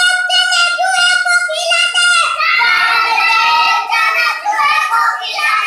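A young boy chanting a poem aloud from his school textbook in a loud, high-pitched sing-song voice, drawing out many of the notes.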